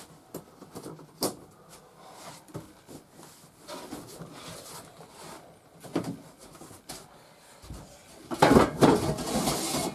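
Salvaged junk being handled and moved around during a camper tear-out: scattered knocks and clunks, then a loud rattling clatter lasting about a second and a half near the end.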